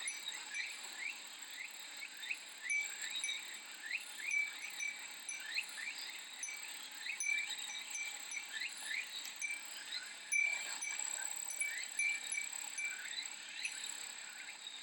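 A Japanese wind chime (furin) tinkling in short, repeated rings over a chorus of cicadas: a steady high buzz with many short rising calls.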